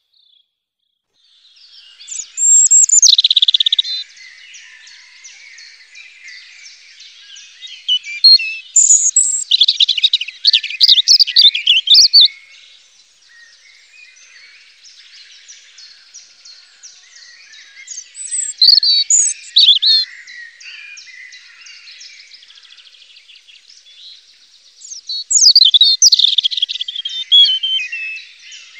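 European robin singing: four bouts of high, varied warbling song a few seconds apart, with fainter bird sounds between them.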